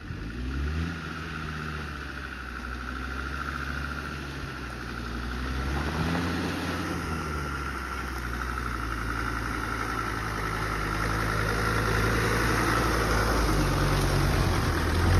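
Land Rover Defender's engine running at low revs as it crawls along, the revs rising and falling near the start and again about halfway through, and growing louder as it comes close and passes.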